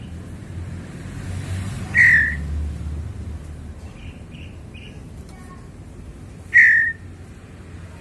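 Caged white-rumped shama (murai batu) calling: two loud, short calls about four and a half seconds apart, with a few soft short notes between them.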